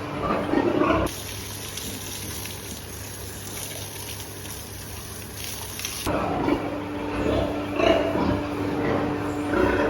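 Pigs grunting over a steady machine hum, cut for about five seconds in the middle by a steady rushing noise.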